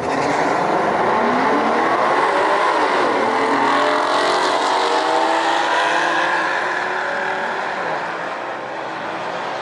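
A car accelerating hard through the gears: the engine pitch climbs, drops at an upshift about three seconds in, then climbs again. It grows a little quieter near the end.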